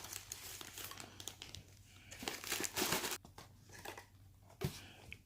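Packaging crinkling and tearing as a mail parcel is unwrapped by hand, in irregular rustles that peak briefly near the middle.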